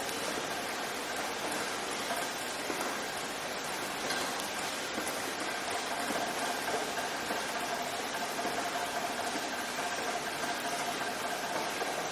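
Steady rain, an even hiss with no single drops standing out, with a faint steady whine in the background.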